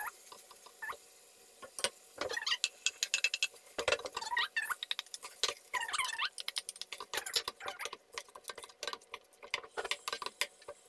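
Diced carrots and peas tipped from small bowls into a nonstick wok of beef mince and stirred with a wooden spoon: a run of quick clicks, taps and patter, with a few short squeaky scrapes.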